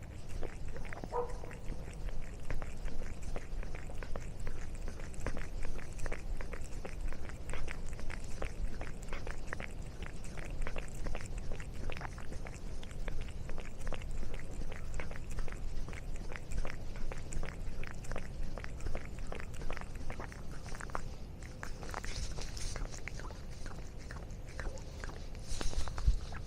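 Cat chewing and crunching a snack: a steady run of small, irregular crunches, with a brief pitched sound about a second in.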